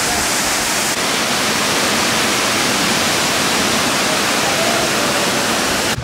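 Water of a waterfall and its rapids rushing over rock slabs into pools, a loud, steady, even rush of water.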